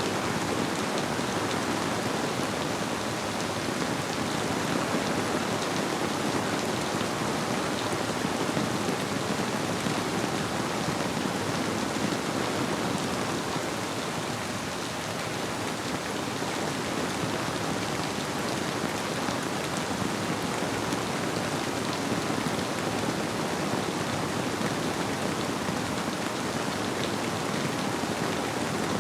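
Steady, even rainfall.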